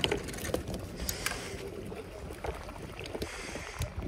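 Herring freshly landed on a sabiki rig being handled in a plastic kayak: a scatter of sharp knocks and clicks as the fish flap against the deck and are unhooked, with a burst of rustling near the end.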